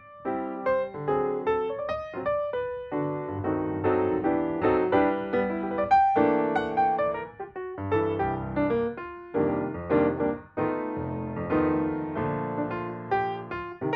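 Background piano music: a light melody over chords, notes struck one after another.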